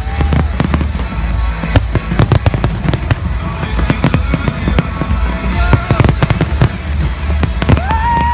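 Aerial fireworks going off in a dense barrage: many sharp bangs and crackles in quick succession over a steady low rumble.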